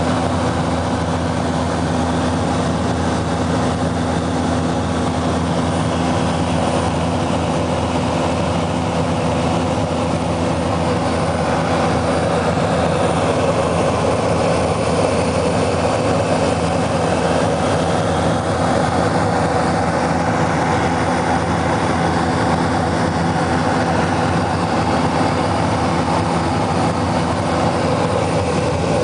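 Steady cabin drone of a propeller aircraft's engine and propeller in flight, a constant low hum with steady tones under it.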